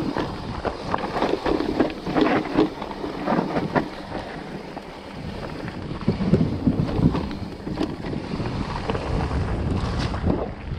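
Orbea Wild FS electric mountain bike coming down a rough dirt trail: tyres rolling over dirt and rocks, with rapid rattles and knocks from the bike, and wind buffeting the helmet-camera microphone. The knocks come thick in the first few seconds, and a heavier low rumble follows later.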